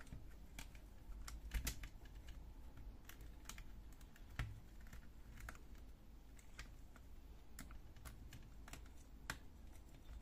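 Faint, irregular small clicks and rustles of gloved hands handling a wire harness and plastic parts on a laser printer fuser unit, with two louder knocks, about a second and a half in and about four seconds in.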